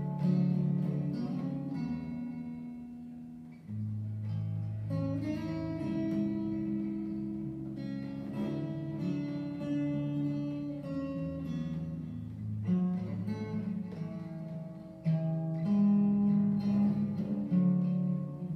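Steel-string acoustic guitar played solo, plucked notes of a melody over held bass notes, with a short lull about three and a half seconds in.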